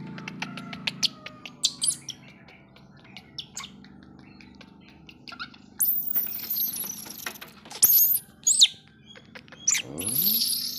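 Baby monkey giving high-pitched squeaks and squeals in several short bursts, starting about halfway through and again near the end, with light taps and clicks before them.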